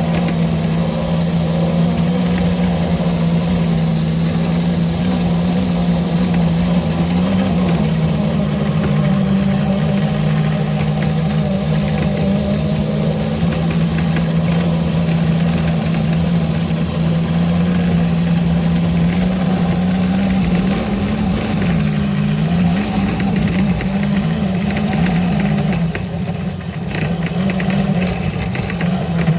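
A small engine running steadily at a low, even hum. Its pitch wavers briefly about two-thirds of the way through.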